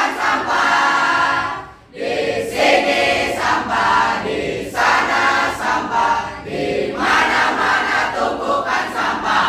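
A group of teenage students, girls and boys together, singing a cheer song in unison. The singing goes in loud phrases with one short break about two seconds in.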